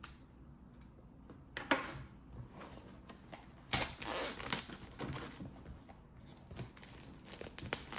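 A cardboard box being handled and cut open with a utility knife: scattered sharp clicks and a stretch of rustling and scraping about four seconds in.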